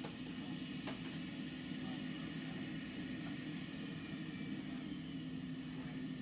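John Deere 9520RX four-track tractor's diesel engine running at a steady, even drone, with no change in speed.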